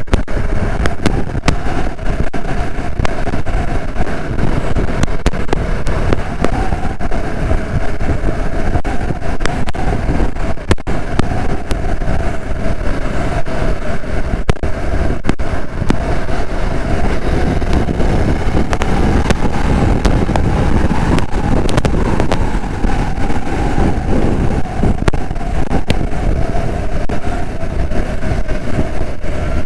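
BMW F900R parallel-twin engine running at riding speed, under a heavy rush of wind on the helmet microphone. The engine's pitch wavers a little with the throttle.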